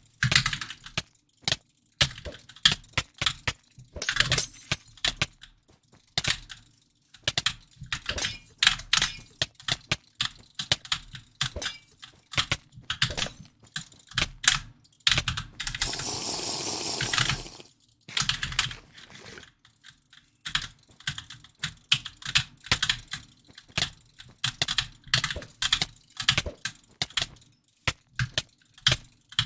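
Clicking in quick, irregular runs of sharp clicks, with a short burst of steady hiss about halfway through.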